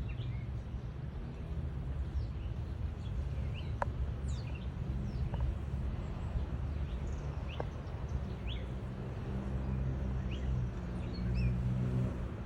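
A low droning hum that swells and fades, with short, scattered bird chirps above it.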